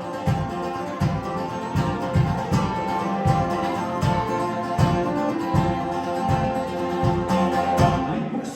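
A band playing live through an instrumental passage with no singing: guitar over a steady low beat of about two to three thumps a second.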